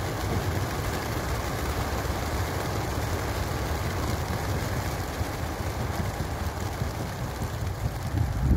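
Wingbeats of a large flock of racing pigeons taking off together from a transport truck's crates: a dense, steady flutter of many wings, briefly louder near the end.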